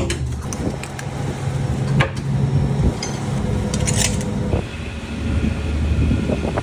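Scallop boat at work: its engine running steadily under the rattle and knock of shells and metal gear. A steady high whine joins about four and a half seconds in.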